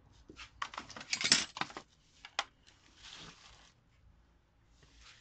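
Small objects being handled and set down by hand: a quick run of light clicks and clatter over the first couple of seconds, ending in one sharp click, then a brief soft rustle. The drill is not running.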